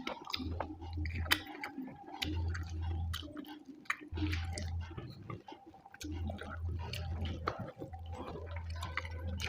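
Wet, close-up chewing and lip-smacking of rice and fish curry, full of small clicks and squishes, with a low hum that comes and goes about every second or two.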